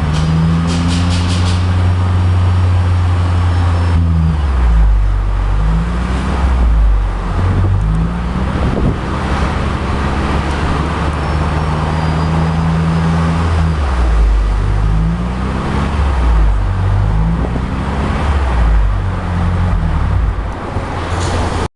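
Exhaust note of a Toyota Prius (ZVW30) 1.8-litre four-cylinder engine through a Kakimoto KRnoble Ellisse aftermarket muffler. The engine runs with a low, steady note that rises and falls in pitch several times as the revs change, and cuts off sharply at the end.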